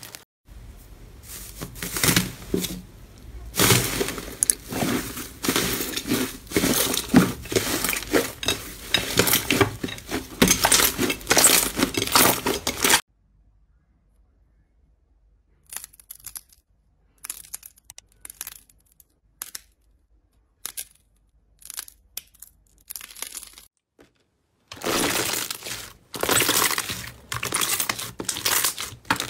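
Slime squeezed and kneaded by hand, giving a dense run of crackling, popping and tearing sounds. About 13 seconds in it cuts to a quiet stretch with only sparse faint clicks, and the dense crackling of slime being stretched by hand returns near the end.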